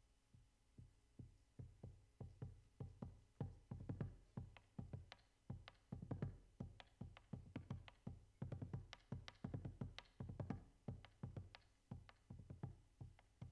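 Percussion music: a steady rhythm of drum strokes that starts about half a second in and grows louder over the first few seconds.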